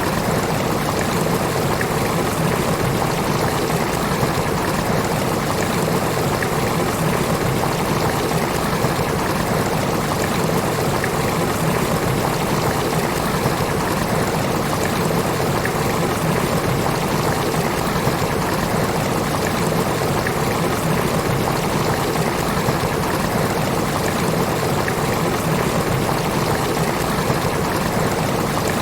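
Steady rain: a dense, even hiss of falling water with a fine patter of drops.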